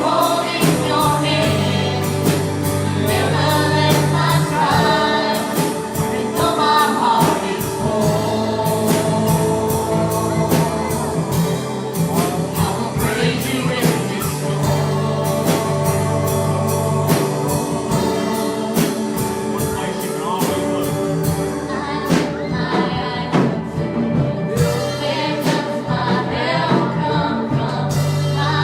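Gospel worship music: singers over a band, with a steady bass and regular drum or tambourine beats at about two a second.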